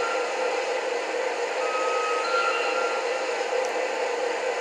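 Onboard sound module of a KISS Gem 4/4 model locomotive playing recorded locomotive running noise through its loudspeaker: a steady hum, with a faint high tone that comes in about halfway through for a second or so and steps up slightly in pitch.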